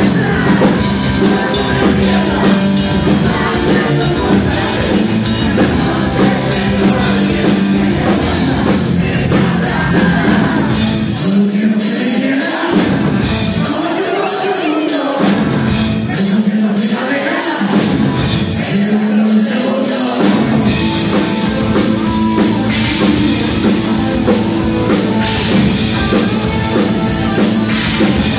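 Live rock band playing: electric guitar, bass and drums with a male singer. About eleven seconds in, the bass and drums drop out for a sparser passage with a sliding melody line, and the full band comes back in about twenty seconds in.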